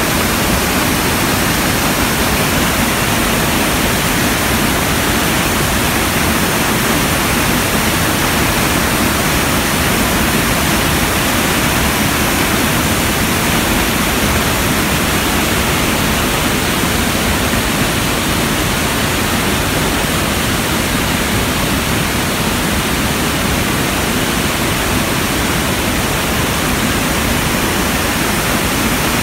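Iguaçu Falls: massive cascades of water plunging into the churning river below, a loud, steady, unbroken rush of falling water.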